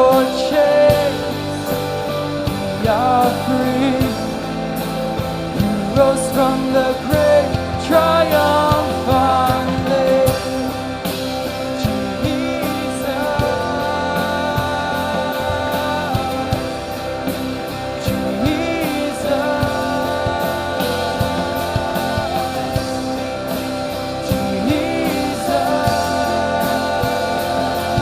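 Live rock-style worship band playing: guitars, bass and drums with a steady beat and sustained chords, and a voice singing without clear words at times.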